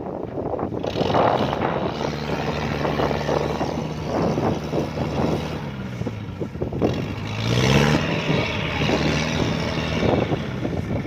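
Diesel engine of a tracked farm machine working in mud. Its note sags about seven seconds in and picks up again about a second later, over a steady rough mechanical noise.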